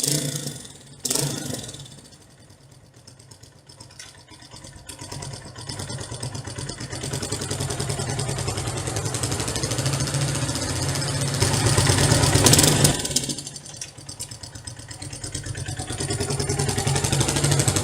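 SYM Wolf 125 motorcycle engine running, with a sharp clunk about a second in, typical of the gearbox dropping into gear. The engine then revs up steadily to a peak, drops off suddenly, and builds again near the end.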